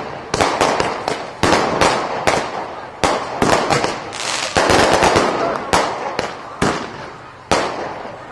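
Fireworks going off: an irregular string of sharp bangs, several a second, each dying away with an echoing tail. A denser crackling stretch comes about halfway through.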